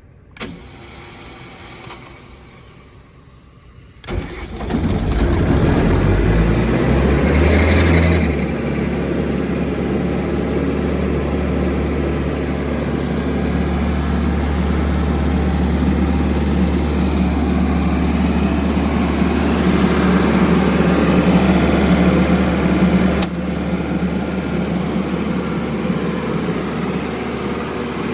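Engine of a Sullair 185DPQ portable diesel air compressor starting about four seconds in: its pitch rises as it comes up to speed, then it settles into a steady run. It drops a little in level near the end.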